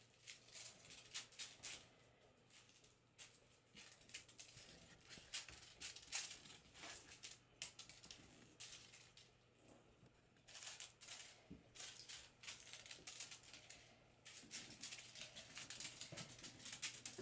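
Faint, scattered clicking and rustling of Bengal kittens' paws and claws scampering over a stone tile floor as they bat a crinkly tinsel ball, over a low steady hum.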